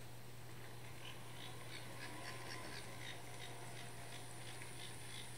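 Atlas N scale Shay model locomotive clicking faintly and evenly, about three clicks a second, as it runs by at moderate speed over a steady low hum. It is a new engine on its first run, still breaking in.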